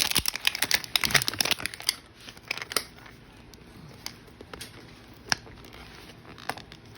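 Thin plastic wrap crinkling and tearing as it is peeled off a toy capsule ball, dense for the first three seconds, then only a few scattered clicks.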